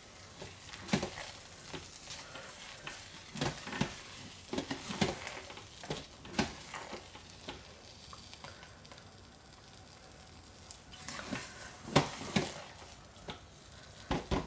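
Spatula stirring thick hot-process liquid soap paste in a crock pot: irregular scraping strokes, sparser around the middle.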